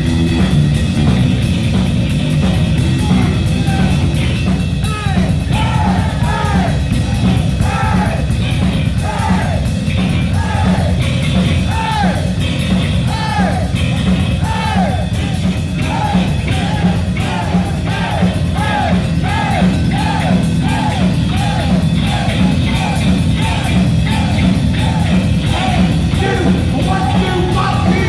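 Heavy metal band playing live, loud distorted electric guitars, bass and drums. From about five seconds in, a high line of short swooping notes repeats over the band, more than once a second, until near the end.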